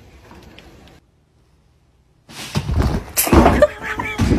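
After a moment of silence, a wooden interior door bangs and thumps loudly several times, the hardest hits about a second and a half before the end and again near the end.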